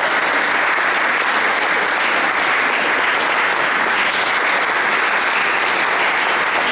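An audience applauding, a dense, steady clapping that holds at an even level throughout.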